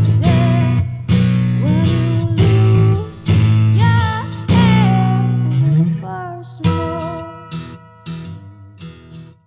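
Background music: the closing bars of a guitar song, full and loud with notes sliding in pitch, then thinning to single plucked notes that ring and fade out near the end.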